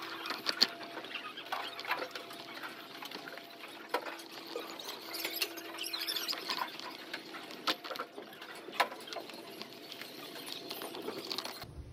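A baby stroller being pushed along, its wheels and frame squeaking and clicking irregularly over a faint steady hum.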